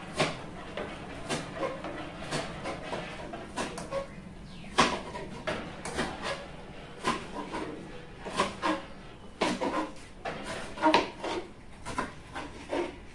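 Kitchen clatter: a metal spoon knocking and scraping against an aluminium cooking pot as it stirs, with a pot lid being handled. The knocks come irregularly, one or two a second, a few of them sharper and louder.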